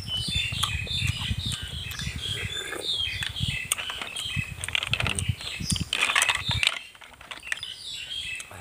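Cooked snail shells clicking and clattering against each other and the plate as a hand picks through the pile, in a dense run of clicks that is busiest around five to six seconds in and then dies down.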